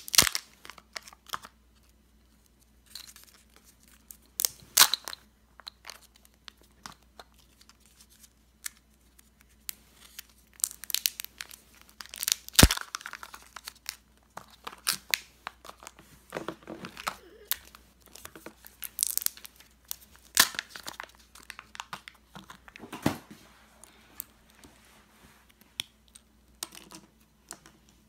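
Kinder Joy egg packaging being peeled and torn open by hand: the plastic-and-foil wrappers crinkle and tear, and the plastic egg shells give irregular clicks and snaps, with one sharp snap about halfway through.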